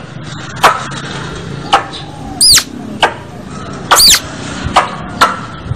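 Squirrel lure call: a squirrel giving sharp, short chip calls every second or so, with two longer high squeaks that rise and fall in pitch, one just before the middle and one about two-thirds through.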